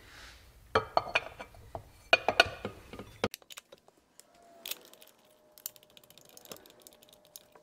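Metal clicks and clinks as the aluminium water pump cover of a horizontal Minarelli scooter engine is seated on the engine case and its bolts are started with a hex key. The clicks come thick for the first three seconds, then thin out to a few faint ticks.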